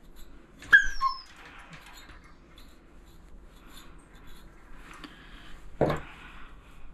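Border Collie gives one short, high yelp falling in pitch about a second in, as a dematting rake tugs at the matted hairs of her sensitive tail. Soft scraping strokes of the rake through the fur, and a clunk near the end as the tool is set down on the grooming table.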